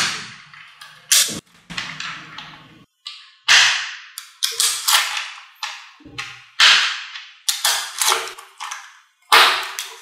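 Small neodymium magnet balls snapping together in sharp, ringing clicks, about fifteen at uneven intervals, as strips of balls are folded onto each other into a block.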